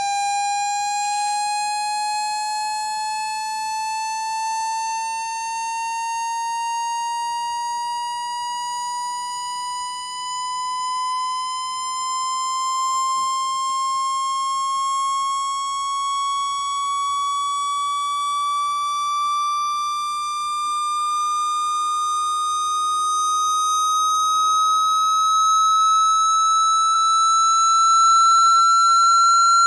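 Electronic test tone with a slightly buzzy edge, gliding slowly and steadily upward in pitch and growing a little louder near the end: a speaker water-ejection sweep, played at volume to vibrate water out of a phone speaker.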